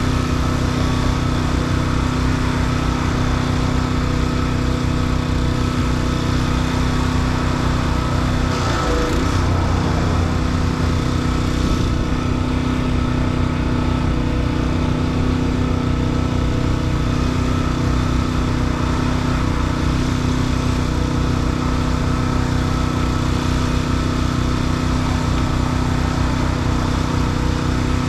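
Engine running steadily with a fast low pulse, its pitch dipping briefly and recovering about nine seconds in.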